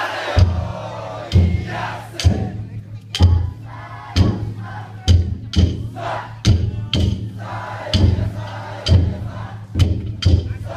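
Taiko drum on a festival float struck in deep strokes about once a second, sometimes two close together, with a crowd shouting and chanting in chorus around it.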